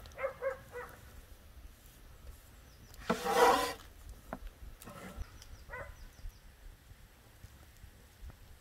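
Large kitchen knife scraping across a wooden cutting board while cutting vegetables, with one long loud scrape about three seconds in and a few light knocks of the blade on the board after it.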